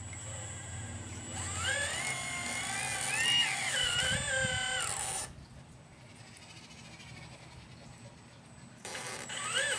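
Small electric motor on a 1/12-scale RC excavator whining as it works: the pitch wanders up and down for about four seconds, then drops away. A shorter whine rises in pitch near the end.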